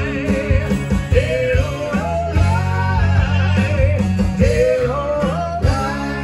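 Live rock song: a male lead voice sings with vibrato over strummed, amplified acoustic guitar.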